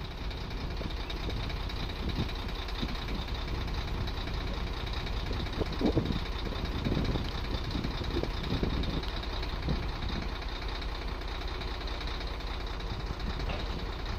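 Vehicle engine idling with a steady low rumble, with a few louder bumps about six to ten seconds in.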